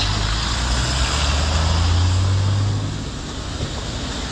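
A bus driving past close by: its engine drone swells, then fades away about three seconds in, over steady street traffic noise.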